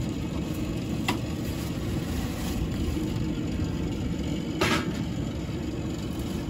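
Steady low rumble. Over it, two short clanks of a metal baking tray and foil against an open pellet grill as food is slid onto the grate, one about a second in and a slightly longer one near the five-second mark.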